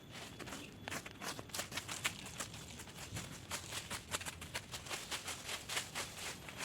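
Footsteps crunching on dry leaf litter and twigs on a forest floor: irregular sharp crunches and snaps, about two to three a second.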